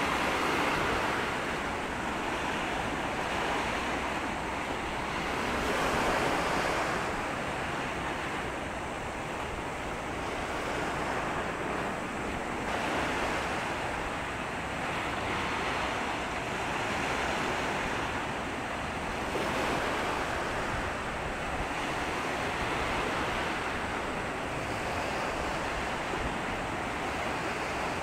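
Sea water washing and surging at the water's edge, swelling and easing about every six seconds, with wind on the microphone.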